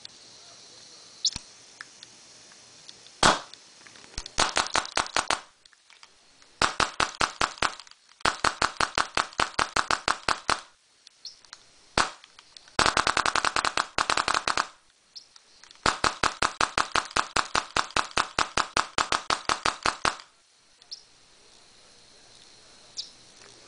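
Shocker paintball marker firing: one single shot, then several strings of rapid sharp shots at about eight a second, each string lasting one to four seconds. The owner blames a problem with the marker's breech eye.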